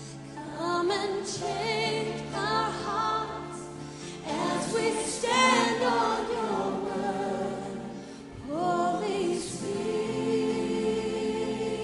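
Slow worship song with sung vocal phrases over held chords. The voices pause and enter again twice.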